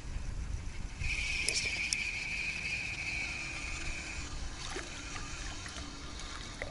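Ultralight spinning reel being cranked to retrieve a spinner, giving a steady high whir for about three seconds, over faint running river water.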